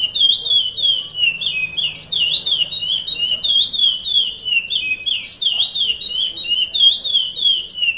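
Chestnut-bellied seed finch (curió) singing the 'Paracambi rompe nuvem' song type: a continuous, rapid run of clear whistled notes, each slurring up and down.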